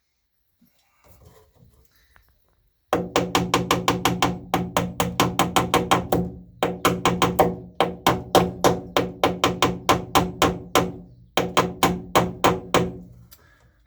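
A hammer driving cable staples into wooden framing: runs of quick, evenly spaced ringing blows, about four a second, with short pauses between runs.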